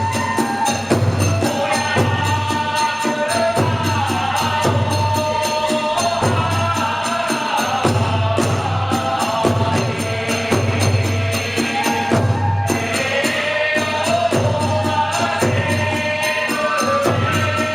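Kagura hayashi ensemble playing: a deep drum keeps a steady beat under clashing hand cymbals, while a melody line moves above them.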